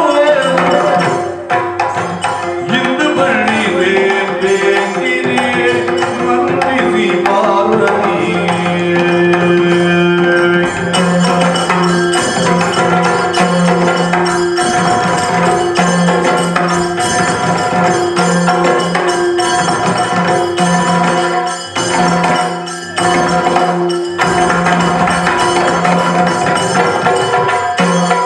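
Yakshagana music: a steady drone under maddale and chande drums playing a rhythm, with a singer's long ornamented vocal phrase over the first third that gives way to drumming.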